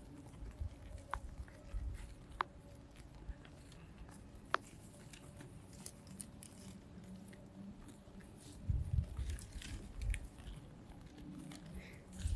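Sheep grazing close by: faint crunching and tearing of grass as they bite, with scattered sharp clicks and a few low rumbles in the second half.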